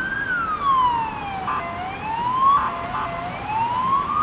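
Emergency vehicle siren wailing, its pitch sweeping slowly up and down over and over, each rise or fall lasting about a second or more.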